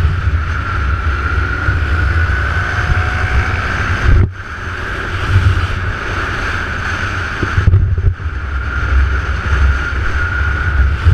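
Wind buffeting hard on an action camera's microphone while riding a motorbike at speed, over the steady drone of the bike's engine. The rush drops away briefly about four seconds in and dips again near eight seconds.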